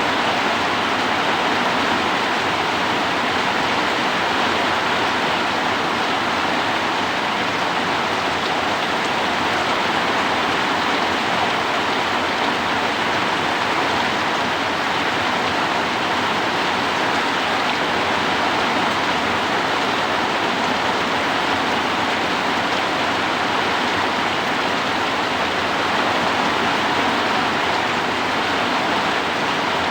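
Heavy rain falling steadily, a dense even hiss with no single drops standing out, with strong wind blowing.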